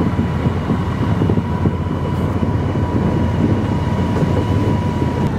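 Ride-on lawn mower engine running steadily while the mower is driven, a low rumble with a thin steady whine above it.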